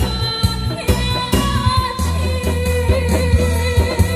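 Korean trot-style song: a singer holds a note over a backing track with a steady bass line and drum beat.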